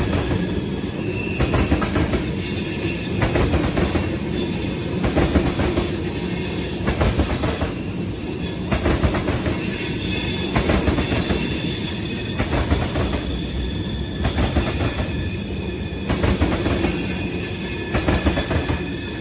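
A train rolling past. Its wheels clatter in a rhythm that repeats about every one and a half seconds as each car goes by, with thin high squealing tones over it.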